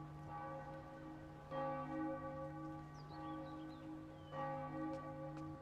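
A church bell tolling slowly: struck twice, about three seconds apart, each stroke ringing on until the next.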